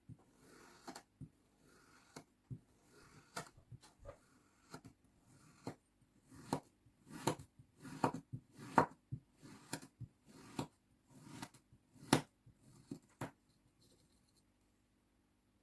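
Knife cutting through kinetic sand: a series of short, crisp slicing strokes, roughly one every half second to second, louder in the middle, stopping near the end.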